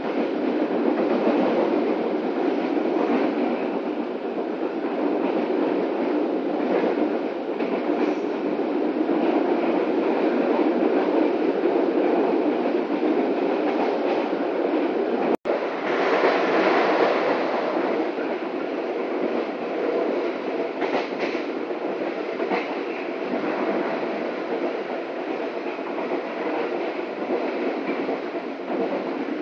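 Steady running noise of a passenger train coach heard from inside, the rumble of wheels on rails with faint clicks over rail joints. The sound drops out for an instant about halfway through.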